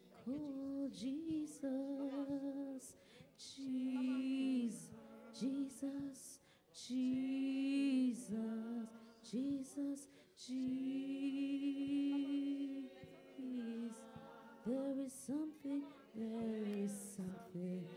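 A woman singing unaccompanied in a slow worship style, holding long notes with a slight waver between shorter phrases.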